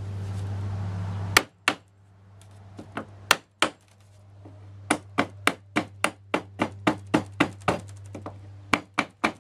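Small hammer tapping on a wooden cross strip right over its nails to loosen them from a trailer ceiling panel: light, sharp taps in quick runs, about three a second through the middle. A low steady hum stops at the first tap, about a second and a half in.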